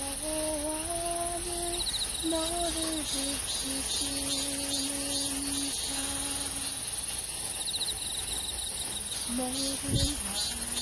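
Crickets chirping in a steady high-pitched chorus, with a short rapid trill about two seconds in and again past eight seconds. A slow melody of long held, gently sliding notes runs underneath.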